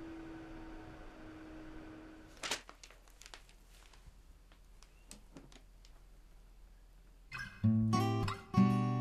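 A steady hum that cuts off about two and a half seconds in, then a quiet stretch with a few faint clicks, then acoustic guitar music starting about seven and a half seconds in with loud strummed chords.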